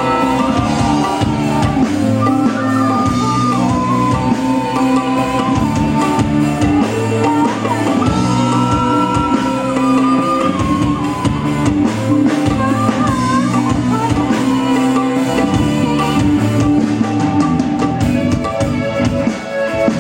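Live band music with a drum kit and guitar under a wavering melody line, playing steadily and loudly.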